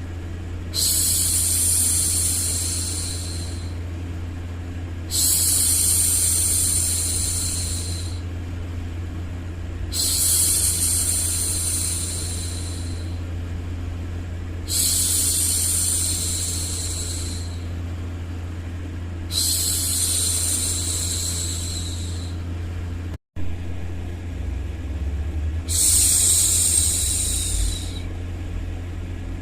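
A woman's drawn-out "shhh" hushing sound, repeated six times, each shush lasting about three seconds and coming about every five seconds, over a steady low hum of background noise. There is a brief cut to silence about 23 seconds in.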